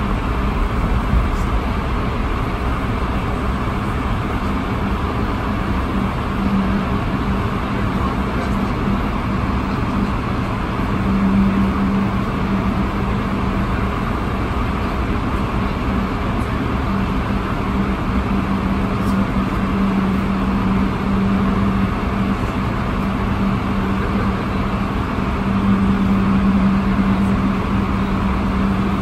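Cabin noise of an Airbus A220-300 taxiing, its Pratt & Whitney PW1500G geared turbofans at idle: a steady rush with a low hum that swells and fades several times.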